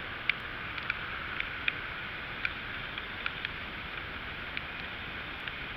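Rain and airflow on a moped-mounted camera: a steady hiss broken by sharp, irregular ticks of raindrops striking the housing, about two a second.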